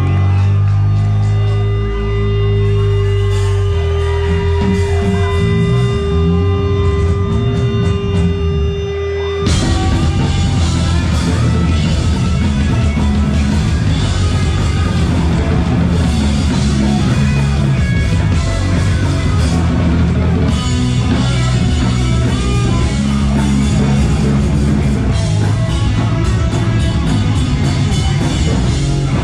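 Rock band playing live, heard from on the stage: bass notes under a steady held tone, then drums and full-band guitars crash in about nine seconds in and keep going.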